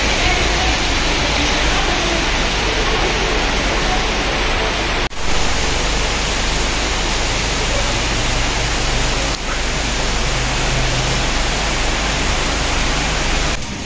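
Heavy rain falling in a steady, dense hiss, broken off for an instant twice.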